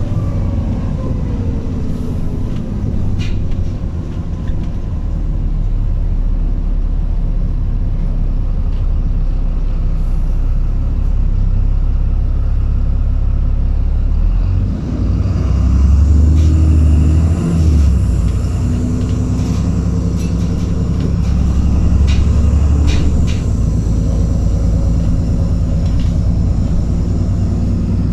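Inside an Alexander Dennis Trident 2 Enviro400 double-decker bus on the move: a steady diesel engine drone with road rumble and a few light rattles. The pitch falls at the start as the bus slows, and the engine grows louder with rising pitch about halfway through as it accelerates, then again a little later.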